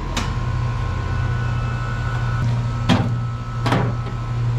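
Lennox heat pump outdoor unit running with a steady low hum, with three sharp clicks or knocks close by: one at the start and two together about three seconds in.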